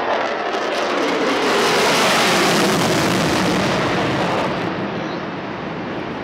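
Jet noise from an F-22 Raptor's two Pratt & Whitney F119 turbofans with afterburners lit, on a fast pass and steep pull-up. A broad rushing roar swells to its loudest about two seconds in, then eases and loses its high end after about four and a half seconds.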